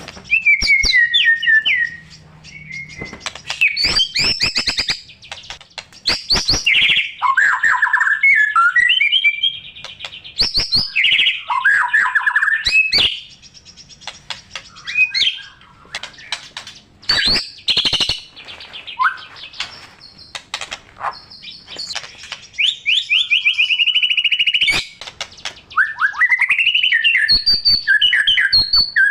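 White-rumped shama singing a loud, varied song of whistled phrases, rapid trills and sharp clicking notes, with short pauses between phrases; a full, continuous song rich in mimicked phrases.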